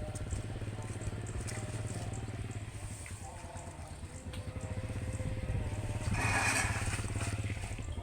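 Combine harvester's engine running steadily with a fast, even pulse, during its unloading into a rice field. About six seconds in, a louder rasping noise lasts around a second.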